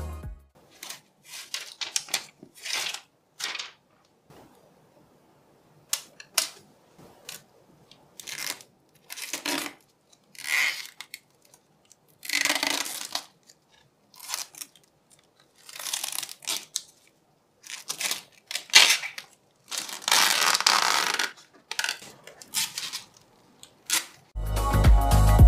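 Protective plastic film being peeled off a graphics card's shroud and crinkled, in short irregular rustles and crackles with quiet gaps between them and one longer crackle near the end.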